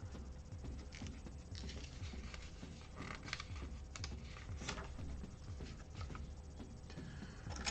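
Plastic LEGO bricks clicking and rattling as they are handled and pressed into place, a scatter of small irregular clicks with a few sharper snaps.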